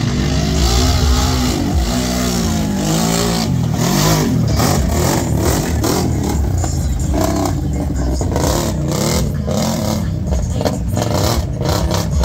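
Big-tire ATV engines revving hard under full throttle, rising and falling in pitch, with a run of sharp knocks and clatter through the second half.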